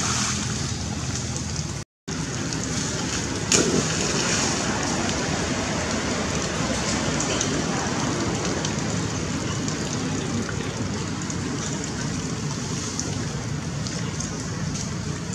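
Steady rain falling on a shallow pool, an even hiss that cuts out for an instant about two seconds in, with one sharp impact about three and a half seconds in.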